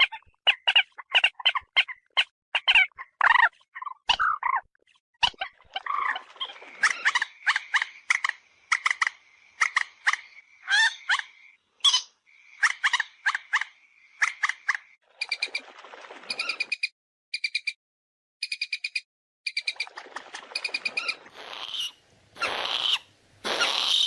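Common moorhen calling: quick series of short, clipped notes, several a second, in bouts broken by brief pauses.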